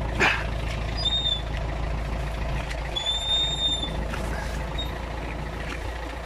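An engine idling steadily throughout. Two short high-pitched squeals sound over it, a brief one about a second in and a longer one about three seconds in, with a short scraping burst right at the start.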